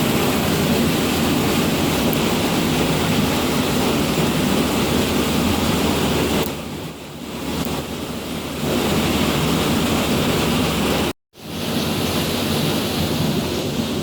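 Steady loud rushing of water at a mill, easing somewhat for a couple of seconds in the middle and cutting out completely for an instant about eleven seconds in.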